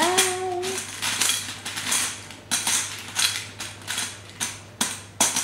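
Spoon scraping and clinking against a stainless steel mixing bowl as a food mixture is stirred, in quick irregular strokes about three a second.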